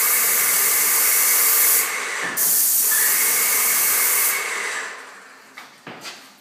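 Paint spray gun spraying in two long hissing bursts, with a short break about two seconds in, then trailing off; a few faint knocks near the end.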